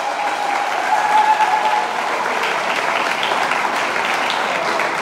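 Audience applauding in a hall, with a single held cheer from one voice fading out over the first two seconds.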